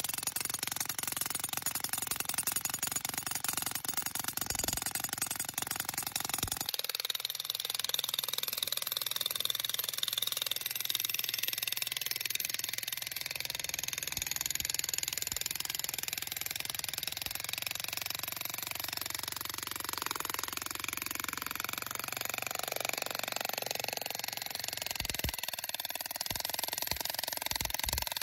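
Vevor 2200 W electric demolition jackhammer with a pointed chisel bit hammering rock, cutting off abruptly about seven seconds in. After that, background music.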